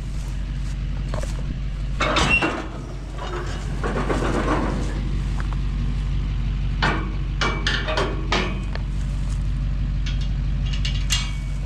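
Vehicle engine idling steadily, with a series of metallic clanks and knocks from a round-bale trailer's unloading mechanism as its load of bales is dumped: a cluster about two seconds in, a rougher clatter a little later, and a run of sharp clicks in the second half.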